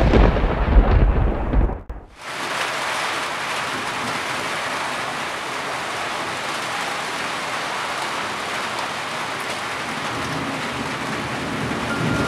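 A loud, deep rumble of thunder over rain that stops abruptly about two seconds in, followed by steady, heavy rain.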